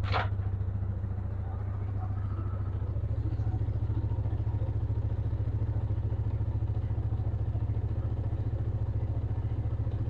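2009 Polaris Sportsman 550 XP's single-cylinder engine idling steadily with an even, fast pulse, just after a rev has died down. A brief high squeak sounds at the very start.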